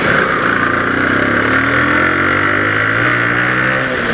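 Motorcycle engine pulling with rising pitch as the bike accelerates, easing off near the end, over steady wind and road noise.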